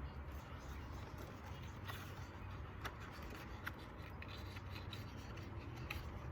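Low steady hum with faint rubbing and a few light clicks from a paper picture book being handled.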